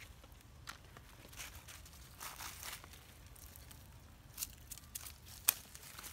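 Dry leaf litter rustling and crackling as macaques move about on the forest floor, with scattered light clicks and one sharper click about five and a half seconds in.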